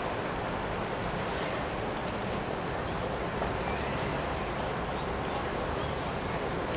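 Steady rushing outdoor background noise, with a few faint, short high chirps.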